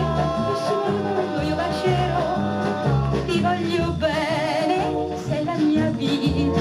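A song with a singer and band, played from a vinyl record on a 1963 Fidelity UA7 record player.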